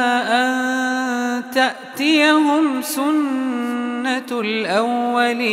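A man's voice reciting the Quran in melodic tajweed style, drawing out long vowels and ornamenting them with rising and falling turns, with a short break about a second and a half in.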